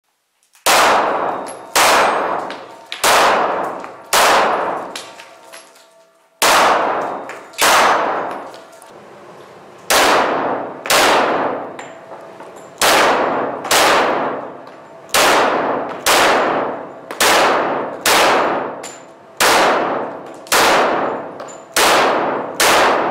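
Glock 41 pistol firing .45 ACP, shot after shot at about one a second, each report ringing out with a long echo. There is one longer pause of about two seconds after the fourth shot.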